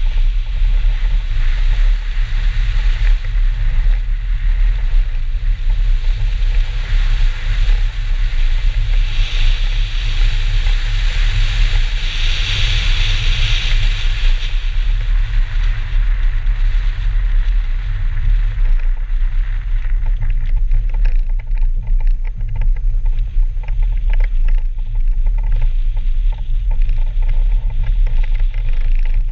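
BMW 320 rally car driving on snow, heard from a camera mounted on the outside of the car: a steady deep engine and wind rumble on the microphone, with a hiss of snow under the tyres that is strongest about ten seconds in and dies away in the second half.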